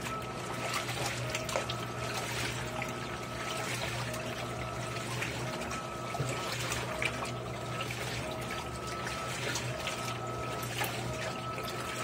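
Electrolux LAI17 17 kg top-load washing machine agitating towels in a low water level, likely in its rinse: water sloshing and churning. A motor whine comes on in strokes about every second and a bit as the agitator reverses, over a steady low hum.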